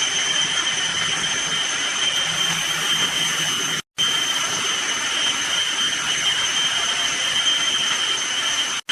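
Keg washing machine running: a steady rushing hiss with a high, even whine. It cuts out for a split second about four seconds in and again near the end.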